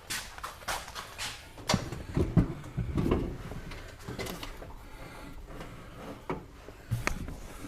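Clicks and knocks of objects being handled and set down, a few light quick ones at first, then a cluster of heavier thumps around two to three seconds in, and a sharp click near the end.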